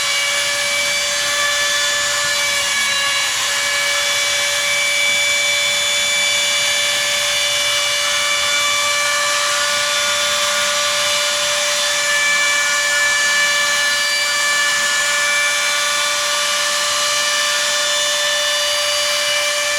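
Steel-frame CNC router with NEMA 23 stepper motors running: a steady spindle whine with higher stepper tones that shift and change as the axes move.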